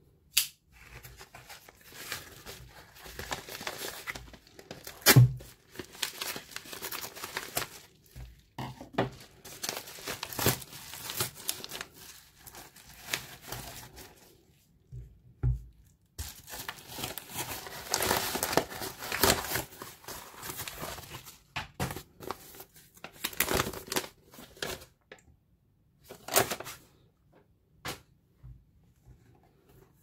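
Paper mailer envelope being torn open and crinkled by hand, with rustling stretches and a lighter's cardboard box being handled. Several sharp clicks or knocks fall among the rustling, the loudest about five seconds in.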